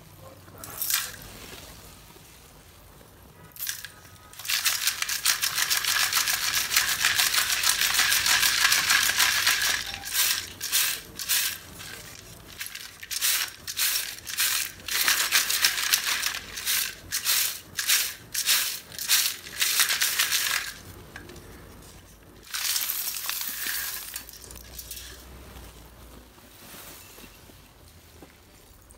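Brittle pieces of roasted multani mitti (fuller's earth clay) rattling and scraping in a round metal sieve as it is shaken to sift out the dust: a long continuous rattle, then a run of separate shakes about one a second, and one more short rattle near the end.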